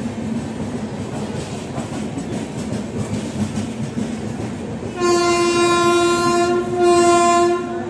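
Railway station platform din, then a train horn sounds about five seconds in: one long blast followed at once by a shorter one, each a single steady pitch.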